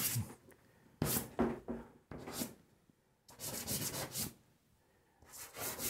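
Dry pastel stick scraping across drawing paper in about five short strokes, separated by brief pauses.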